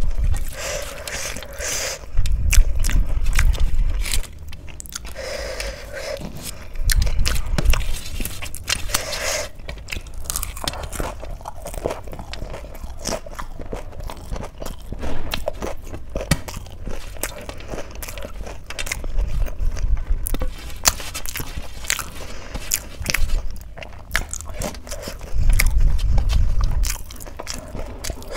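Close-up eating with the fingers: rice mixed with crushed papad squished and scraped around a steel plate, then crunching and chewing of mouthfuls, with many small clicks and a few dull low thumps.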